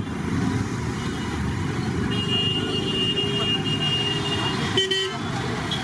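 Steady road traffic noise, with a short vehicle horn toot about five seconds in.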